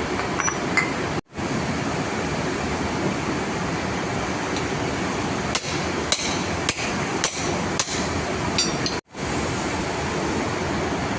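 Metal being tapped with a hammer during a tension pulley bearing replacement: about six sharp taps roughly half a second apart, starting about halfway through, over a steady hissing background noise.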